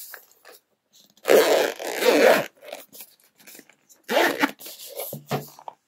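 Zipper of a small hard-shell camera cleaning kit case being unzipped in a couple of long rasping pulls.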